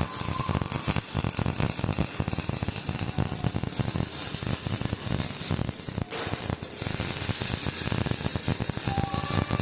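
MIG welding arc crackling and sputtering continuously, a dense irregular frying crackle, with a short dip about six seconds in.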